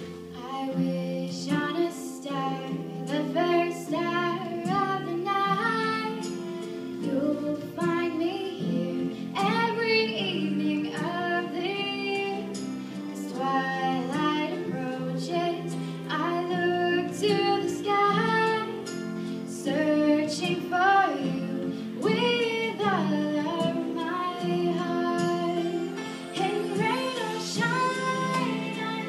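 A woman singing a slow song, her voice amplified through a microphone, over held accompaniment notes.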